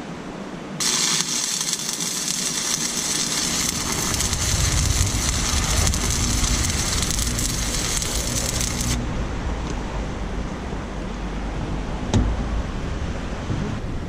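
Stick-welding arc from a buzz-box welder crackling steadily through one bead of about eight seconds, starting about a second in and cutting off suddenly. A single sharp knock on metal follows near the end.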